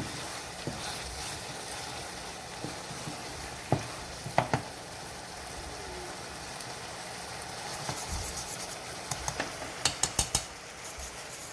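Chicken and vegetables sizzling in a sauce-coated pan while being stirred. A utensil clicks against the pan a few times about four seconds in, then in a quick run of clicks near the end.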